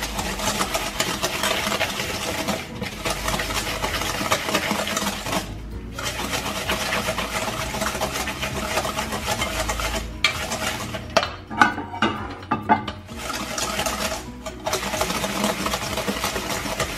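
Wire whisk scraping and clinking against a stainless steel bowl in quick, continuous strokes, stirring melted butter and sugar together. The stirring pauses briefly about three, six and ten seconds in and turns choppier around twelve seconds.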